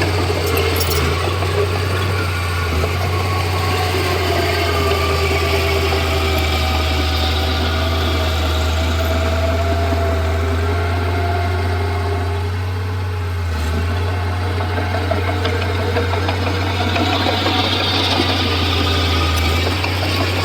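Diesel engine of a Komatsu D31P mini bulldozer running steadily with a constant low hum. It eases off briefly about two-thirds of the way through, then picks up again.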